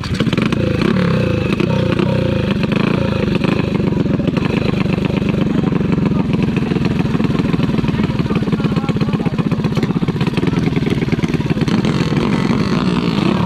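Drag-race 125 cc trail-bike engine with a 57 mm big-bore, running loud and held at high revs on the start line, a rapid buzzing exhaust that stays fairly steady throughout.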